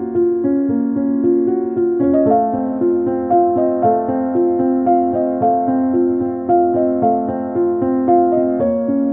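Background music: a repeating melody of short, evenly paced notes over sustained chords, growing fuller about two seconds in.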